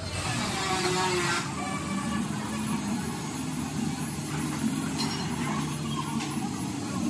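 A steady engine running, with a broad hiss of background noise over it.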